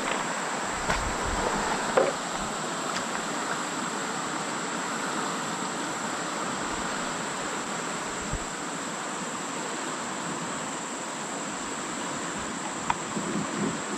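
A steady, high-pitched insect chorus in rainforest, over a constant background hiss, with a few faint clicks.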